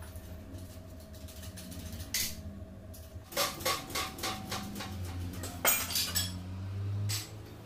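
Metal clinks and taps as an aluminium piston, steel rule and scriber are handled against a steel vise block, with a cluster of sharp clinks from about three seconds in, over a steady low hum.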